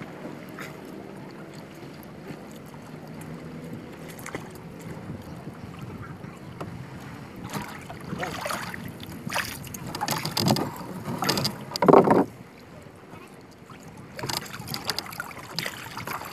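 Water splashing and sloshing around a small outrigger canoe as a handline is hauled in and a hooked needlefish is brought to the boat, in irregular rushes that are loudest about ten to twelve seconds in.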